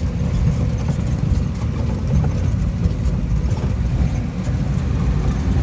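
Jeep driving over a rough, stony dirt track, heard from inside: a steady low engine rumble with small knocks and rattles from the body over the stones.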